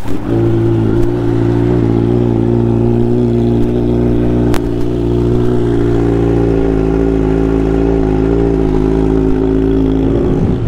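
Kawasaki Z900's inline-four engine idling steadily through a newly fitted Mivv Suono Black slip-on exhaust with its dB killer in, just after being started. The note shifts slightly near the end.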